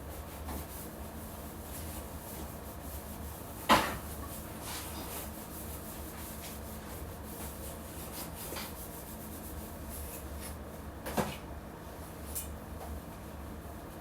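Household cleaning and handling sounds: a sharp knock about four seconds in and another about eleven seconds in, like a cabinet door or an object being set down, with small clicks and light rubbing between, over a steady low hum.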